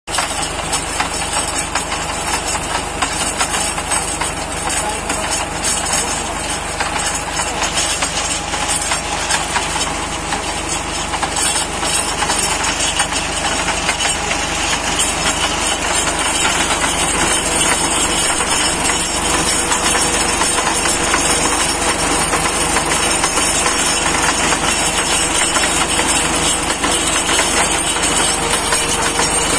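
Tractor's diesel engine running steadily with a rapid clatter, powering a tractor-mounted borewell drilling rig as its rod bores into wet ground.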